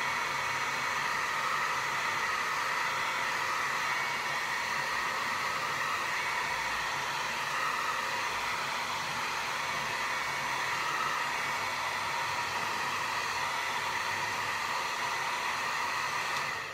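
Handheld hair dryer running steadily, a constant rush of air with a steady motor whine, blowing on wet matte paint to dry it.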